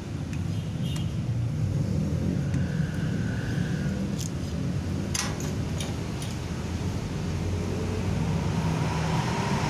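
Steady low motor rumble in the background, with a few light clicks about four and five seconds in from parts being handled on a partly assembled mini chainsaw.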